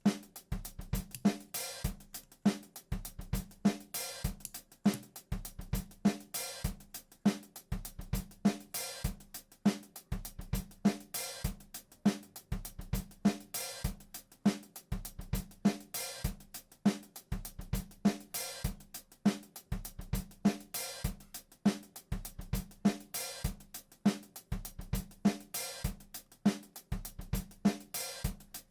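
Background music with a steady drum-kit beat: kick drum, snare and hi-hat.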